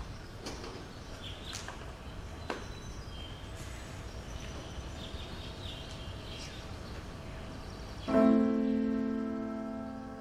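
Faint hiss with a few clicks and soft high chirps. About eight seconds in, a piano is struck once, loudly and low, and left to ring, fading slowly.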